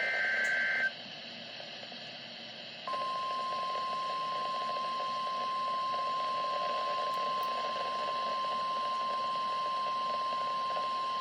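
Emergency alert on NOAA Weather Radio: the last burst of the SAME digital header, a buzzy warbling data squeal about a second long, then a couple of seconds of radio hiss. Then the steady single-pitch 1050 Hz weather radio alert tone comes on and holds for about nine seconds, the signal that a warning message follows.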